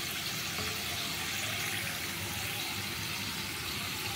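Potato cubes deep-frying in hot oil in a kadai, a steady even sizzle and bubbling. The potatoes are fried through, crisp outside and soft inside, and ready to be lifted out.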